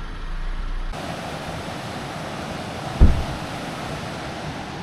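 A low vehicle hum that stops about a second in, then a steady outdoor rushing noise, with a single low thump about three seconds in.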